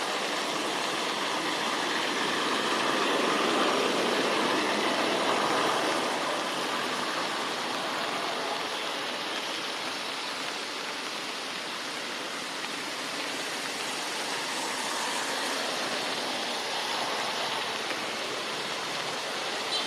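Steady rushing noise, even and unbroken, slightly louder a few seconds in.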